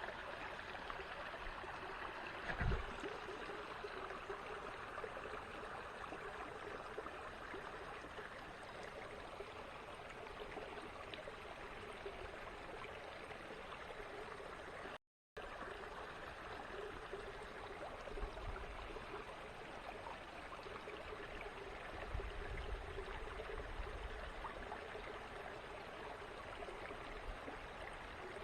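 A small creek running over its bed, a steady trickling rush of water, with a short low thump about three seconds in and low wind rumbles on the microphone in the second half. The sound cuts out for a split second halfway through.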